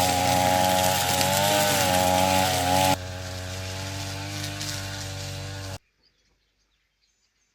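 A small engine runs steadily at a slightly wavering pitch. It drops sharply in level about three seconds in and cuts off abruptly after about six seconds, leaving near silence.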